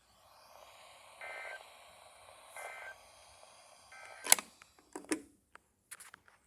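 Midland WR120EZ NOAA weather radio sounding the SAME end-of-message code after the weekly test: three short two-tone data bursts about a second and a half apart, over faint hiss. Just after the third burst comes a sharp click, the loudest sound, then a few softer clicks and knocks.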